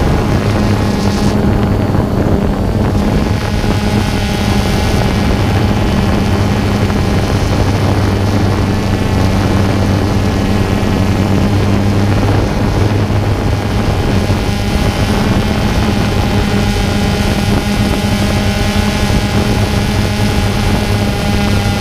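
Multirotor drone's motors and propellers buzzing steadily, heard from the camera on board, with wind noise on the microphone.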